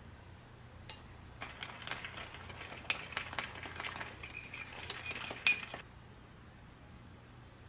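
Metal utensils clinking and scraping lightly against dishware in a run of small clicks that starts about a second in and stops suddenly near the end.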